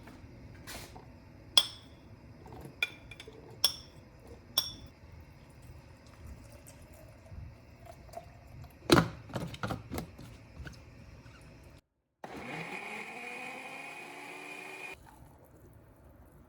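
Dishes and utensils clinking and knocking, some with a short ring. Then an electric blender motor spins up, rising in pitch and settling, runs for about three seconds and cuts off abruptly.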